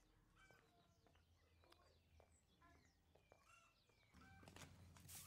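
Near silence with faint, scattered chirps and short whistles of small birds, and a low hum coming in near the end.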